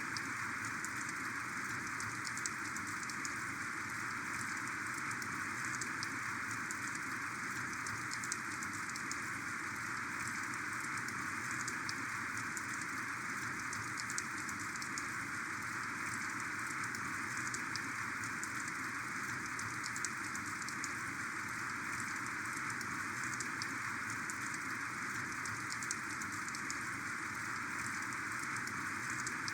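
Heavy, torrential rain falling steadily: a constant hiss of rain with many small sharp drop ticks.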